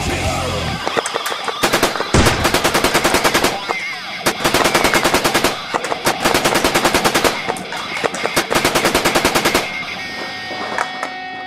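Airsoft electric gun firing on full auto in several bursts of rapid, evenly spaced shots, each burst one to two seconds long. The firing stops about ten seconds in.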